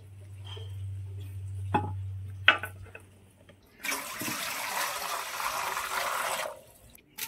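Water pouring in a stream into a stainless steel bowl for about three seconds, then stopping sharply. Before it come two sharp knocks over a low hum.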